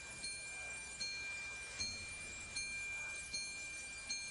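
Marching band front-ensemble mallet percussion playing a soft passage: single struck notes about every three-quarters of a second, each ringing on over a steady high held tone.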